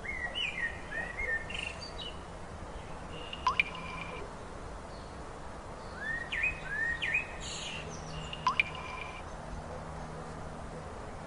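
Birds calling: short rising chirps in two quick runs and a few single sharp notes, over a steady background hiss of outdoor ambience.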